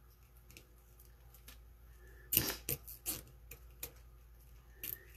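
A few short crisp rustles and clicks, a cluster about two and a half seconds in and single ones later, from hands pushing a stiff poly burlap petal and its zip tie into a wreath board.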